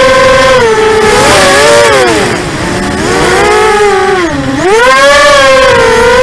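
Vortex 250 Pro racing quadcopter's four brushless motors and propellers whining, heard from its onboard camera. The pitch holds steady, falls and splits into several tones about two seconds in as the throttle changes through a turn, climbs, dips sharply again about four and a half seconds in, then rises back.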